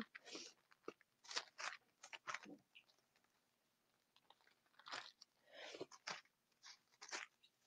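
Faint, irregular rustling of thin Bible pages being turned, with a few sniffs from a stuffy nose that the speaker puts down to allergies.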